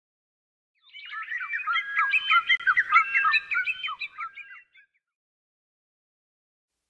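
Many small birds chirping at once in a dense, overlapping chatter of short high calls, starting about a second in and fading out a few seconds later.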